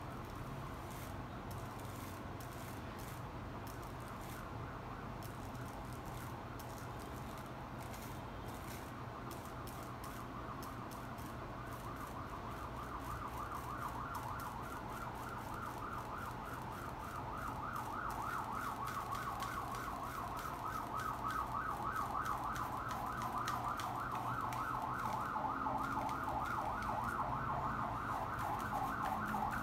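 A siren going quickly up and down in pitch, faint at first and growing steadily louder through the second half, over a steady low hum.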